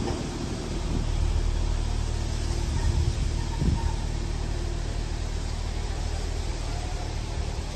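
Heritage passenger carriages rolling slowly past, a steady low rumble of wheels on rails with a single knock about three and a half seconds in.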